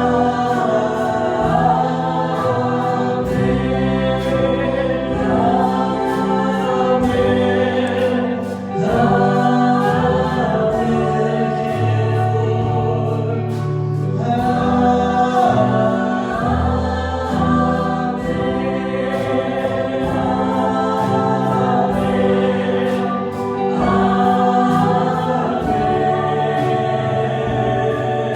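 Choir singing a gospel hymn in harmony over sustained low accompaniment, with a regular percussive beat.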